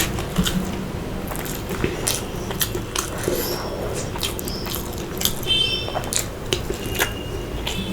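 A person chewing and biting food close to the microphone, with irregular wet mouth clicks.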